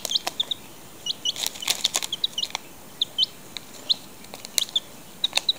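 A young chick peeping in many short, high chirps while it pecks at potato crisps in a foil bag. Now and then there is a sharp crackle or tap from the crisps and foil.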